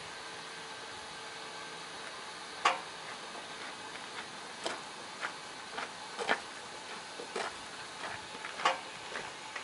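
A steady faint hiss, then a run of irregular sharp clicks and knocks starting between two and three seconds in, roughly one or two a second.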